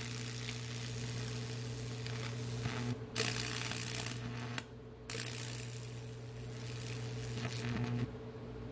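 High-voltage electric arc sizzling and crackling as it burns a Lichtenberg figure into a wooden board, over the steady hum of the transformer. The arc cuts out for a moment about three seconds in, again for about half a second near five seconds, and stops about eight seconds in.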